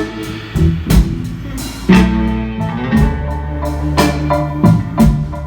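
Live rock band playing the instrumental intro of a song: guitar chords over held bass notes, with the drum kit marking a strong beat about once a second.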